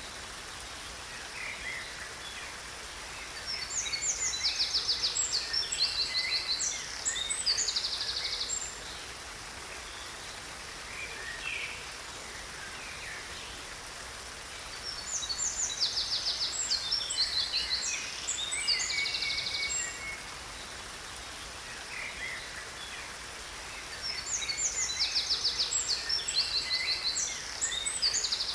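Songbirds singing in three bursts of chirps and rapid high trills, the same song phrase coming back about every ten seconds, over a steady faint rush of water.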